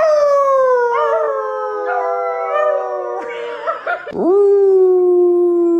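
A dog howling: one long howl that slowly falls in pitch, then after a short breath a second long howl that swoops up and holds steady.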